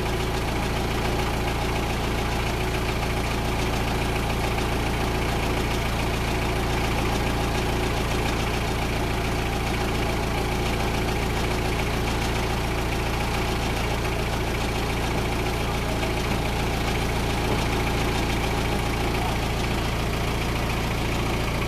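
Engine of a homemade well-drilling machine running steadily at a constant speed during a test run, with no change in pitch or loudness.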